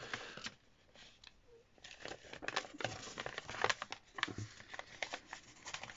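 Sheet of white paper crinkling and rustling in the hands as an origami boat model is folded, its flaps tucked and creased. Short crackles and taps come sparsely at first, then more often from about two seconds in.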